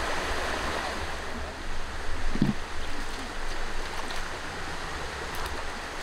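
Shallow river running over rocks: a steady rush of flowing water, with a brief low sound about two and a half seconds in.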